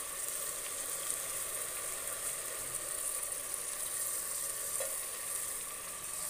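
Tomato masala sizzling steadily in a pressure cooker while soaked rice is tipped in on top of it.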